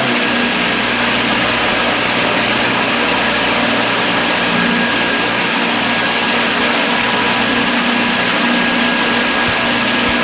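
Engine running steadily: an even, unbroken drone with a constant hum, no rise or fall in pitch.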